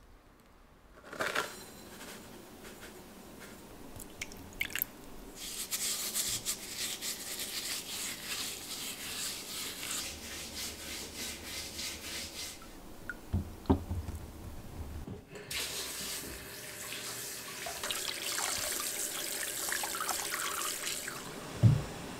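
Lemons being washed and scrubbed by hand in a glass bowl. A rubbing, watery hiss comes in two long stretches, with a few knocks of fruit against the glass, the loudest near the end.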